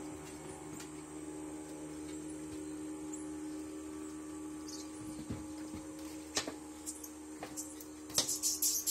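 A steady low hum with a thin high whine, a few faint short high-pitched chirps, and scattered sharp clicks. Near the end, a loud, rapidly pulsing high hiss starts.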